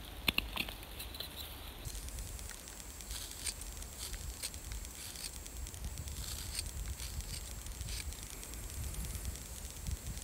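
A carving knife shaving wood, in short, irregular scraping strokes as a small wooden fox figure is whittled, with a few sharper clicks near the start.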